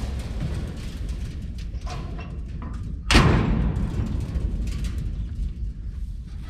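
Steel door panels of an emptied corrugated steel grain bin being pushed and set into place by hand. A few light metal knocks come first, then one loud bang about three seconds in that rings and echoes away, then more small knocks.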